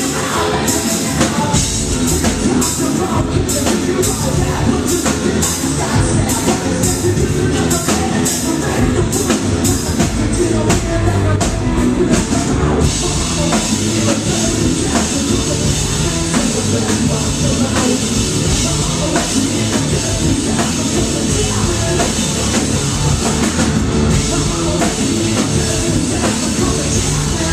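Live rock band playing loud: electric guitars, a drum kit and vocals. The drums drive a steady beat of sharp hits, and about halfway through the sound thickens into a denser, unbroken wash.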